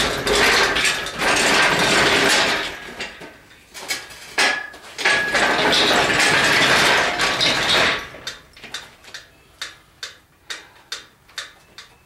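Engine hoist being rolled across rough concrete on its casters, a clattering, grinding rattle in two long pushes, followed by a run of scattered light clicks and taps.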